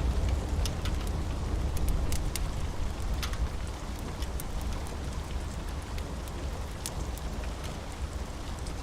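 Steady rain with the low rumble of thunder dying away over the first few seconds, and scattered sharp crackles of a wood fire.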